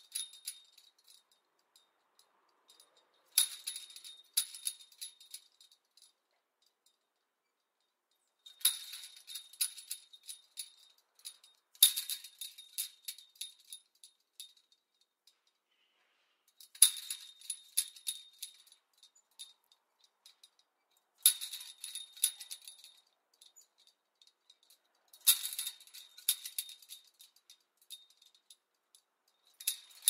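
Metal chain link fence rattling and jangling in several bursts, each a few seconds long, with quiet gaps between.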